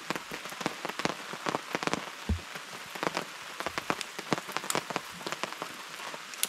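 Rain falling steadily, drops striking a surface as a stream of irregular sharp ticks over a constant hiss, with a short low thump about two seconds in.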